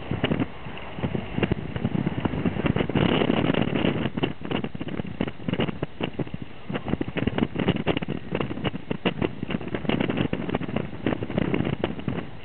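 Wind buffeting the microphone in a car travelling at speed: irregular gusty thumps over a steady rush of road noise, heaviest about three seconds in.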